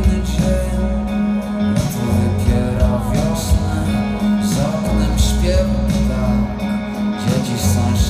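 A live rock band playing through a large PA, with guitar, drums and a steady bass, and a vocalist singing over it, heard from within the concert audience.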